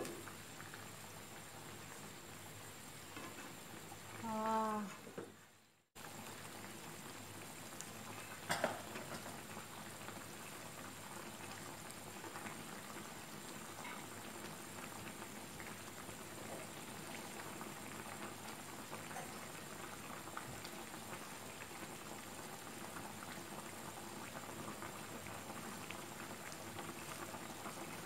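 Fish garang asem broth simmering in a frying pan: a steady soft bubbling and crackle. A brief pitched tone, the loudest sound, comes about four and a half seconds in and is followed by a short gap. A single short knock comes about eight and a half seconds in.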